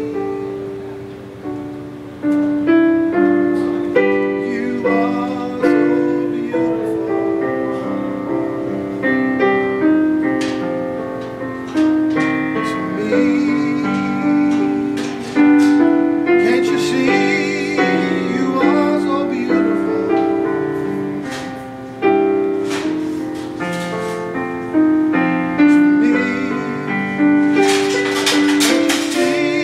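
Piano playing a flowing melody over chords, each note struck and fading away, with a new phrase starting every second or two.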